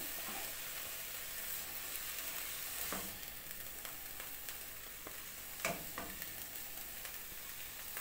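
Chopped fenugreek leaves sizzling in oil in a nonstick kadhai as a silicone spatula stirs and scrapes them, with a soft knock of the spatula on the pan about three seconds in and two more near six seconds.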